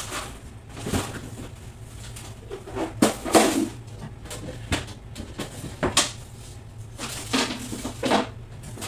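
Irregular knocking and clattering of items being handled while a refrigerator is cleaned out, with louder stretches about three seconds in and again near the end.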